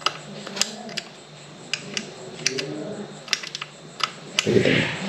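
Scattered sharp metal clicks and taps as hands work a brush cutter's shaft tube into its metal engine housing, with a louder rubbing scrape near the end.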